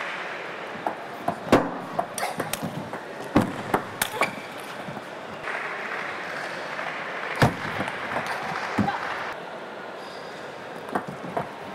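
Sporadic sharp clicks of a celluloid table tennis ball striking bat and table, three in quick succession about four seconds in, over a steady murmur of arena crowd noise.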